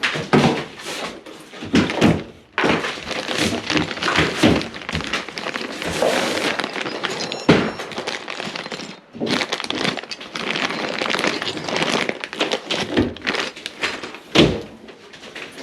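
Handling noise of electrical work on a switch box: repeated knocks, clicks and scraping as wiring is pulled out.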